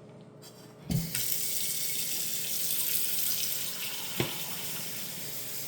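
Beaten eggs sizzling in a frying pan of hot olive oil and butter: a steady hiss that starts with a knock about a second in, with a single sharp tap about four seconds in.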